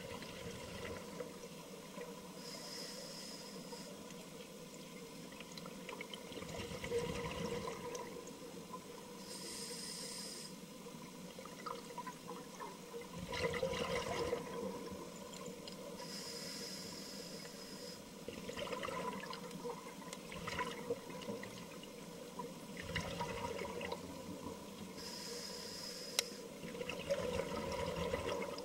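Scuba breathing heard underwater through a regulator: a brief hiss on each breath in, then a gurgling rush of exhaust bubbles on each breath out, repeating through several breaths.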